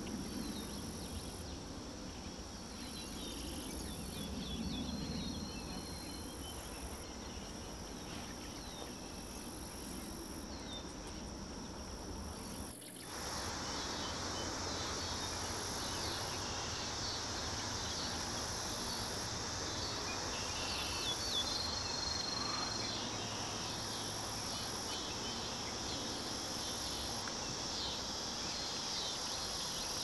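Evening chorus of crickets and other insects: a steady high trill under a still higher buzz that swells and fades every second or two, with a few brief high chirps. It drops out for an instant about halfway through and comes back slightly louder.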